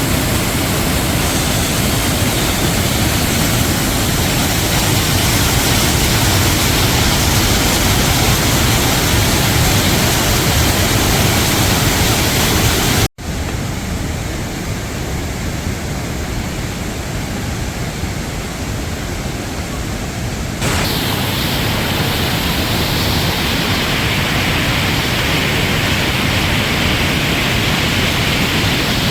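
The Rhine Falls, a large river waterfall, giving a loud, steady rush of falling water. About thirteen seconds in the sound breaks off for an instant and comes back duller and quieter for about seven seconds, then returns to its full, brighter rush.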